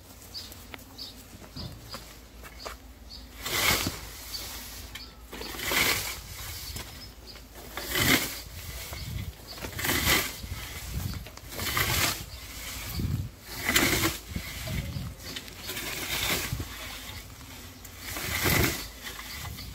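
Hand scythe mowing a stand of alfalfa and maize: a swishing cut about every two seconds, eight strokes in all, starting a few seconds in.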